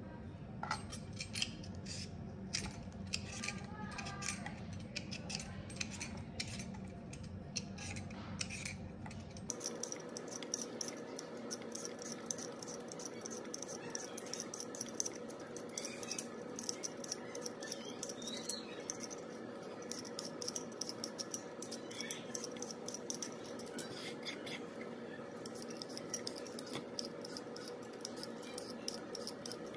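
Swivel vegetable peeler scraping the skin off a raw potato in quick repeated strokes.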